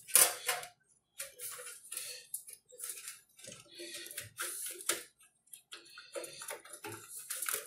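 Irregular clicks, taps and scraping from hands working inside a desktop PC case as a RAM module is refitted into its motherboard slot.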